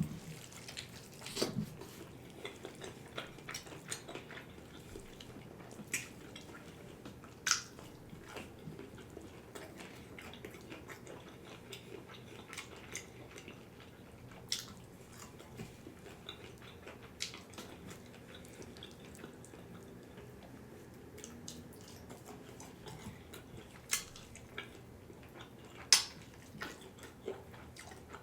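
Close-up eating sounds from fried chicken: chewing and gnawing meat off the bone, with wet mouth clicks and smacks at irregular intervals, a few of them sharper and louder.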